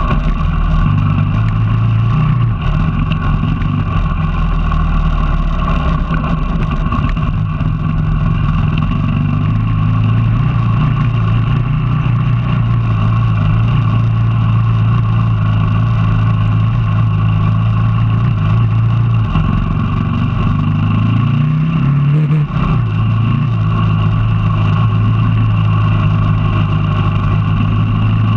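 Motorcycle engine running steadily under way on a dirt track. About two-thirds through the engine note drops, then climbs again as the throttle opens, with a brief break in between.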